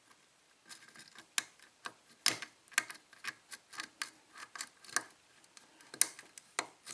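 A bent lock pick clicking and scraping against the pin stacks inside a 5-pin Norwalk cylinder lock during single-pin picking. The sharp clicks come irregularly, a few a second, as the pins are lifted and probed.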